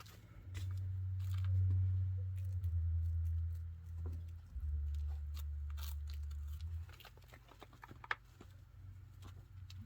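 Chinchillas scrabbling and gnawing: scattered small clicks and scratches, under a low rumble that stops about seven seconds in.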